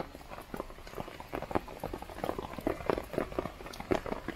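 Heavy rain falling on a Panda VC tarp overhead, heard as a dense, irregular run of drop hits, some much louder than others.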